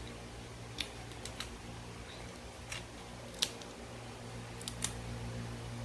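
Scissors snipping: about seven short, sharp clicks at irregular intervals, over a low steady hum.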